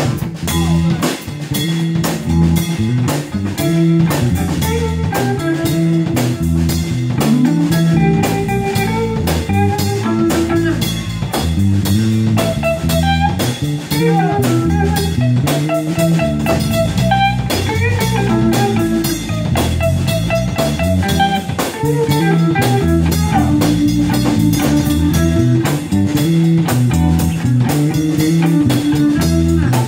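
Live blues band playing: electric guitar, bass guitar and drum kit in a steady blues groove.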